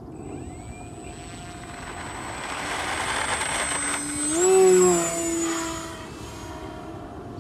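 Brushless electric motor and propeller of a 3D-printed RC flying wing at full power during its takeoff run, building up as it accelerates, loudest about halfway through with a slightly rising whine, then fading as it pulls away.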